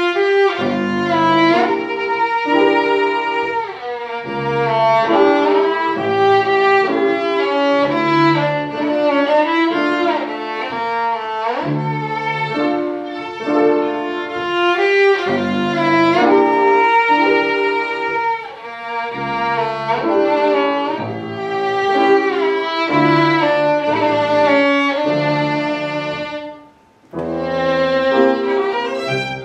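Violin playing a Csárdás over piano accompaniment, in phrases of held notes that slide in pitch. The music breaks off for a moment about three seconds before the end, then carries on.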